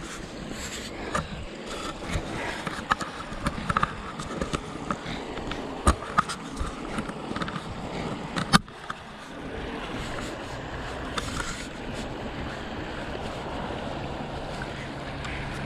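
Footsteps in sandals crunching and scraping over gravel and boulders, with many irregular clicks and knocks over the first nine seconds, the sharpest about six and eight and a half seconds in. Beneath them, and alone after that, a steady rush from the shallow creek.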